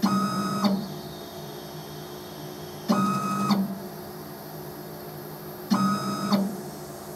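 Emco F1-CNC mill's X-axis stepper motor whining through three short moves, each about 0.7 s long and nearly three seconds apart. The table shuttles out and back to the same point for a repeatability check.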